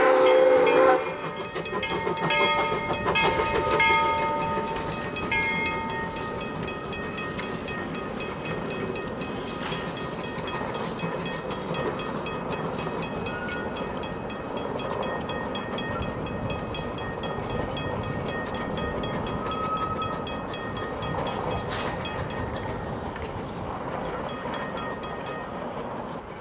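Whistle of Edaville #7, a Baldwin-built two-foot-gauge steam locomotive, sounding a loud chord that cuts off about a second in. The engine then works past with steady rhythmic exhaust chuffing and rail clatter, growing slowly fainter near the end.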